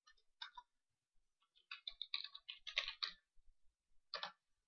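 Faint computer keyboard typing: a couple of keystrokes, then a quick run of them about two seconds in, and one last stroke near the end.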